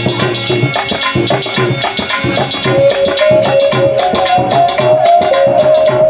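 Live Indian devotional folk music (bhajan): a male voice holds a long high note from about three seconds in, over harmonium and a fast hand-drum rhythm.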